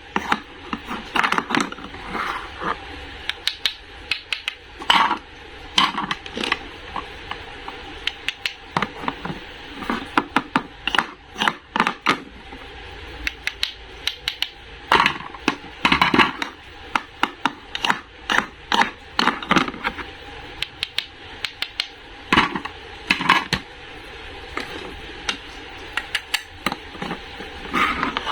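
Irregular sharp clicks, taps and knocks of hard objects being handled, some in quick runs, with a few short scrapes.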